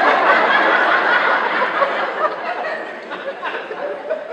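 Theatre audience laughing loudly, dying away gradually over a few seconds.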